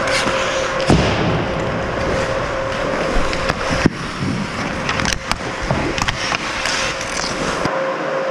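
Ice hockey play close up: skate blades scraping and carving the ice, with several sharp clacks of sticks and puck, over a steady hum.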